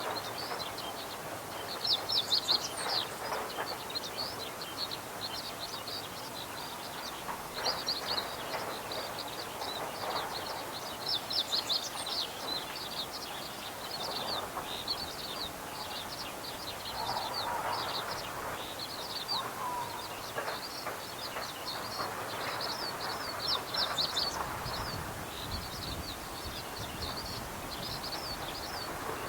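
Meadow bunting singing, with quick high chirping phrases repeated every few seconds over a low, steady background rumble.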